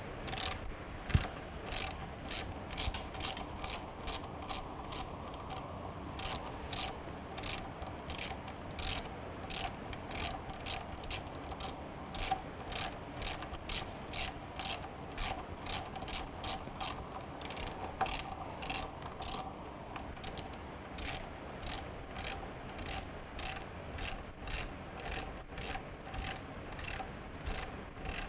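Hand socket ratchet clicking in repeated strokes as it runs the front brake caliper mounting bolts in snug, not yet torqued.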